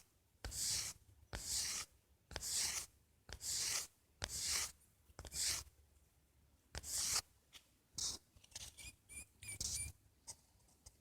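Scratchy rustling scrapes of a cat pawing and batting at a live mouse on a surface, repeating roughly once a second, with a few short faint high squeaks near the end.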